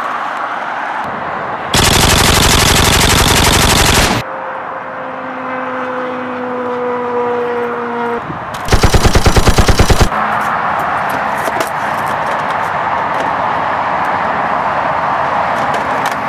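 Two bursts of automatic machine-gun fire, a dubbed sound effect: a long burst of about two and a half seconds starting near two seconds in, then a shorter burst of distinct rapid shots about nine seconds in. Between and around them is a steady hiss, with faint tones gliding slightly down between the bursts.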